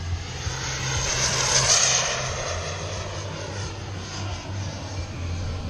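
Radio-controlled Elite Aerosports Havoc turbine sport jet making a pass overhead. Its whooshing whine grows loud, peaks a little under two seconds in, then falls in pitch and fades as it goes by.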